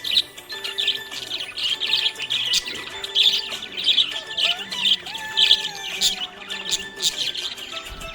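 Small pet parrots chirping and chattering, a quick, continuous stream of high chirps.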